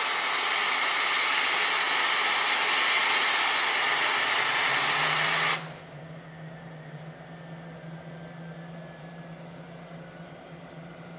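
English Electric Lightning's Rolls-Royce Avon engine being started with its AVPIN starter: a loud, high hiss that cuts off suddenly about five and a half seconds in. A quieter, steady low hum carries on after it.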